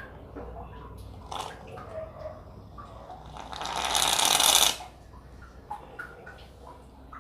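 Aerosol can of shaving foam spraying: one hiss of about a second and a half that grows louder and then cuts off sharply, with small taps and clicks around it.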